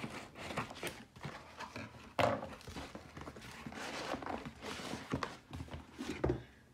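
Cardboard shipping box being opened and unpacked by hand: an irregular run of cardboard scrapes, rustles and knocks, with a sharp thunk about two seconds in and another near the end.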